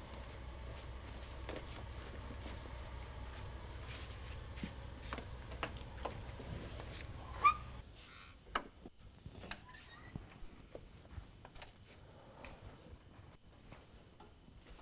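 Night chorus of crickets and insects over a low hum, with scattered soft footsteps and clicks. About seven and a half seconds in, a door is handled with one sharp click and a short squeak. Soon after, the hum and the insect chorus drop away, leaving sparse soft knocks.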